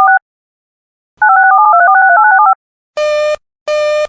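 Touch-tone (DTMF) signalling on an alert relay line: a quick run of paired-tone beeps, several a second, ends right at the start. A second run plays a little over a second in and lasts about a second and a half. Near the end a buzzy tone starts pulsing on and off, roughly once every 0.7 seconds.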